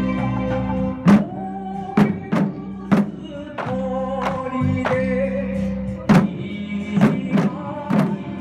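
Festival parade drumming: shoulder-slung Japanese taiko barrel drums struck with sticks, sharp loud hits about once a second, over a held, wavering melody line.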